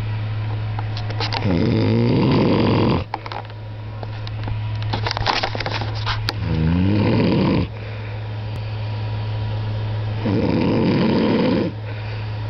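A man snoring heavily in his sleep: three long, loud snores about four seconds apart, each lasting over a second, with quieter breathing between them.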